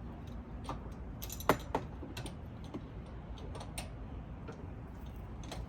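Metal clicks and clinks of a hitch receiver anti-rattle clamp being slid over the hitch bar and fitted by hand, with a sharper metal knock about a second and a half in.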